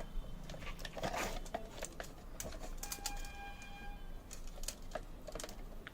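Light scattered clicks and knocks of plastic fan parts being handled and pushed together during assembly, with a faint steady tone for about a second midway.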